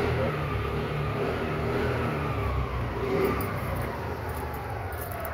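A motor vehicle's engine running nearby, a low rumble with a slowly falling pitch that fades toward the end.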